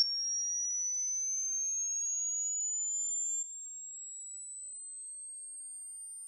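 A pure high-pitched test tone of a hearing test, rising slowly in pitch, that drops a step in loudness about halfway through.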